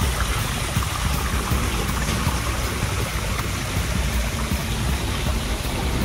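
A small stream running and splashing down a low rocky cascade, with background music that has a light, regular beat.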